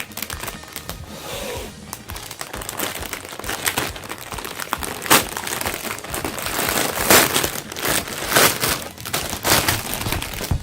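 Plastic packaging crinkling and rustling as it is handled and unwrapped, irregular throughout, with several louder crackles in the second half.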